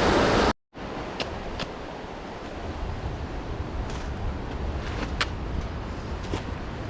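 Rushing stream water that cuts off abruptly about half a second in. After the cut comes a softer steady hiss with low wind rumble on the microphone, and a few faint sharp clicks scattered through it.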